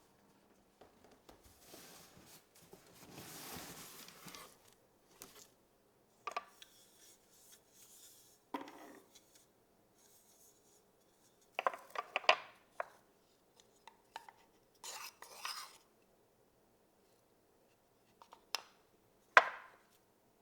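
Kitchen utensils knocking and scraping on dishes and a cutting board, heard as scattered separate knocks. A soft rubbing noise lasts a few seconds near the start, and the loudest knock comes near the end.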